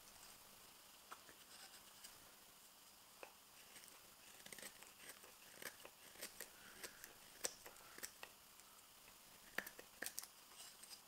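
Spoon knife slicing shavings from the bowl of a green maple spoon: faint, irregular crisp cuts and snaps of wood fibre, coming more often in the second half.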